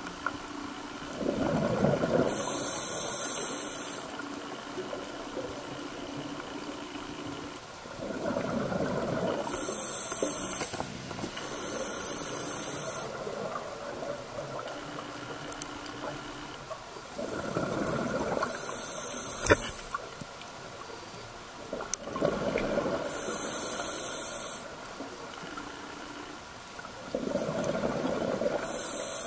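Scuba diver breathing through a regulator underwater: five breaths about every five to six seconds, each a gush of exhaled bubbles with a hiss, over a faint steady hum.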